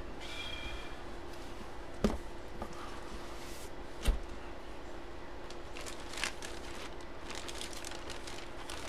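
A bagged jersey and its cardboard box being handled: two sharp knocks about two seconds apart, then faint crinkling of the plastic bag, over a steady low hum.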